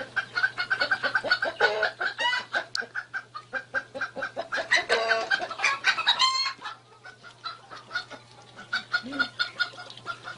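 Farmyard chickens clucking rapidly, with a couple of louder squawks, the clucking thinning out toward the end.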